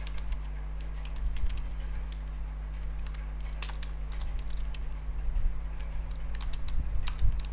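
Computer keyboard typing: scattered keystrokes, including a run of repeated arrow-key presses, with a quicker cluster of keystrokes near the end. A steady low hum runs underneath.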